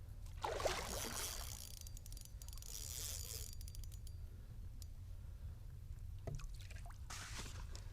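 Water splashing and trickling in three short spells against a fishing kayak, over a steady low rumble.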